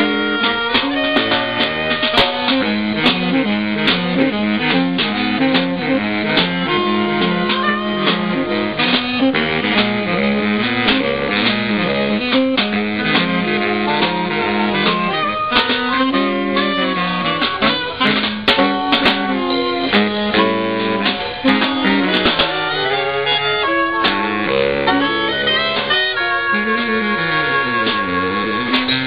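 Live jazz from four saxophones playing together over a drummer's snare beats, the horns in several lines at once with a low horn sliding down and back up near the end.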